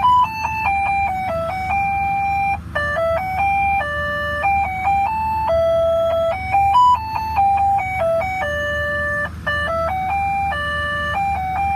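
A simple electronic chime tune of plain held notes stepping up and down in a melody, over a steady low hum.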